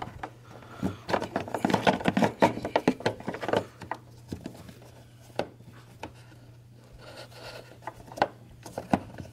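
Plastic headlight dust cover being worked onto the back of a headlight housing by hand. It rubs, scrapes and clicks, busiest in the first few seconds, then gives scattered single clicks.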